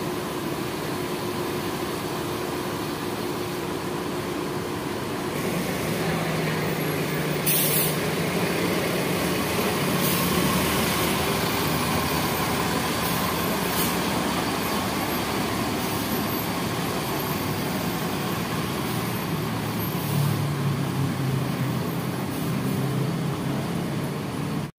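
Mercedes-Benz coach's diesel engine running and then pulling away, its note growing stronger about five seconds in. A short hiss of air from the air brakes comes a couple of seconds later.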